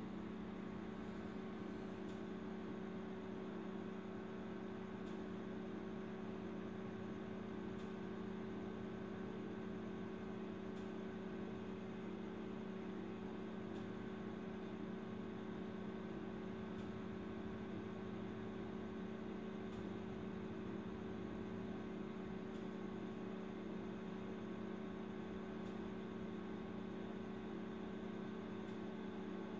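Steady electrical hum with a low drone and a few faint higher tones, unchanging throughout.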